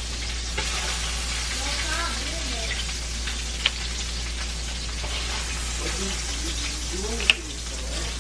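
Salisbury steak patties in broth in a large aluminium stockpot, cooking with a steady sizzle. Two sharp knocks cut through, about halfway and near the end; the second is the loudest sound.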